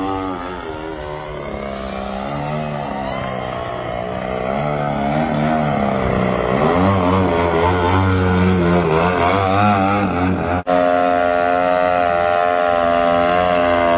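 Large radio-controlled aerobatic plane's motor and propeller running, pitch rising and falling with the throttle as it manoeuvres close by, then holding a steady high-power note while the plane hangs nose-up in a hover. A very short dropout about three quarters of the way through.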